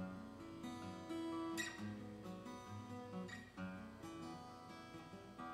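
Acoustic guitar played solo: an unhurried passage of picked notes and chords, each left ringing into the next.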